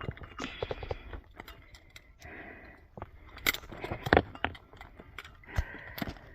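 Irregular clatter of rock and gear being handled on rocky ground: scrapes, clicks and sharp knocks, the loudest two about three and a half and four seconds in.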